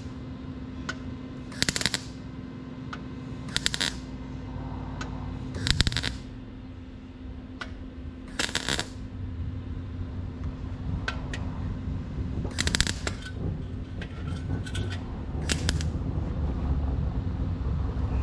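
MIG welder laying a series of short tack welds on thin, stretched steel fender sheet: about six separate crackling bursts, each under a second, with a steady low hum underneath.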